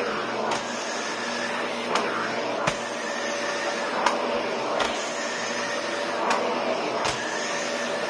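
National 'Powerful & Compact' vacuum cleaner running steadily, a motor whine over the suction rush, as its floor nozzle is pushed back and forth over a pile rug. Short knocks come about once a second.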